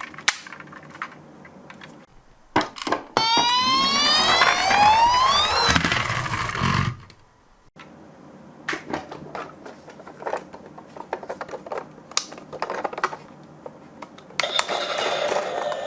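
Toy minicars clicking and rattling as they are handled and run, with a loud whine rising steadily in pitch from about three to six seconds in, and a steady whirring hum starting near the end.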